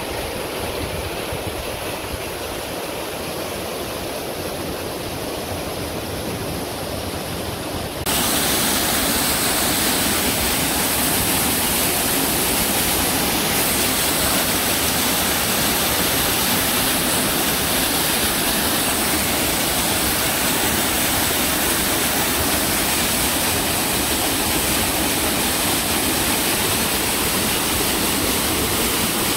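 Waterfall pouring over rocks: a steady rush of falling water that jumps suddenly louder and brighter about eight seconds in, then holds even.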